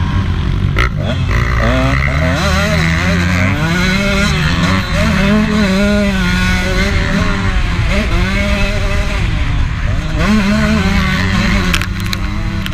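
2015 KTM 150 SX two-stroke motocross bike engine under hard riding. It revs up and drops back again and again, its pitch climbing and falling as the rider goes on and off the throttle. A few sharp clicks come near the end.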